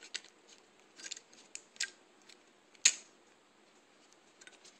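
Zippo lighter's metal lid and hinge clicking and ticking as the lighter is flipped and twirled in the hand, with a sharper snap about three seconds in.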